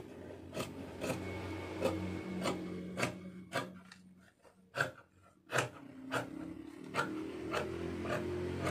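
Scissors snipping through Chantilly lace along a paper pattern: a steady run of short crisp cuts, roughly two a second, with a brief pause about four seconds in.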